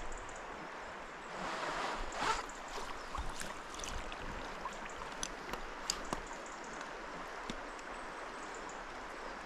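River water flowing steadily, swelling louder about one and a half to two and a half seconds in, with a few faint sharp clicks scattered through.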